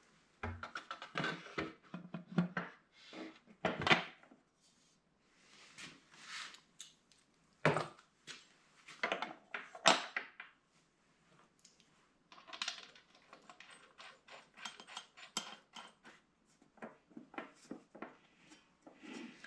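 Irregular metallic clinks, clicks and rattles as a 16-inch diamond blade and its arbor fittings are handled and set onto a masonry saw's arbor, with a few sharper knocks and short pauses between.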